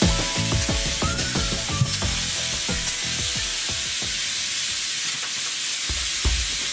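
Vacuum cleaner drawing through a barrel cyclone dust separator, its hose nozzle sucking up loose sawdust from the floor with a steady hiss. Background music with plucked notes plays over the first few seconds and then fades.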